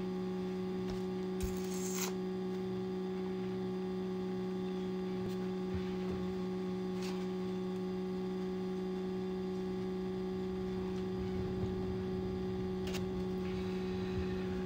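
Steady electrical hum, a low tone with a second tone above it, unchanging throughout, with a few faint clicks.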